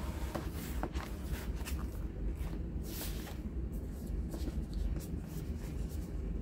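Glossy album photobook pages and photocards being turned and handled: a string of short, irregular paper rustles and slides, one a little louder about three seconds in.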